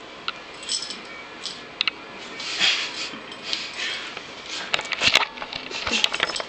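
Rustling and handling noises with several sharp clicks and knocks, the loudest coming in a cluster about five seconds in.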